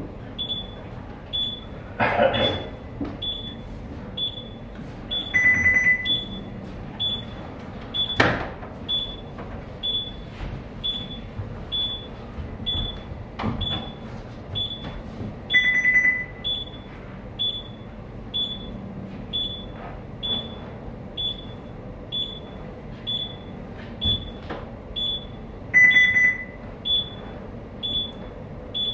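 Electronic beeping from bridge navigation equipment: short high beeps repeating steadily a little more than once a second, with a longer, lower beep about every ten seconds. A few sharp clicks fall in between.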